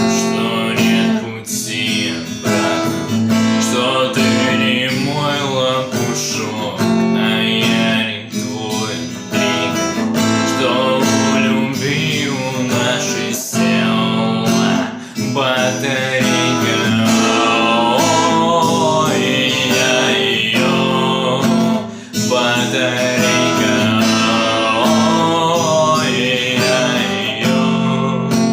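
A song with a strummed acoustic guitar and a singing voice.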